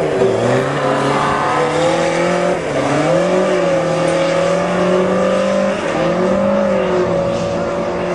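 Motorcycle engine in a home-built dune buggy, revving hard under load as the buggy accelerates across a dirt yard. The engine note dips and climbs back up three times: just after the start, about three seconds in, and about six seconds in.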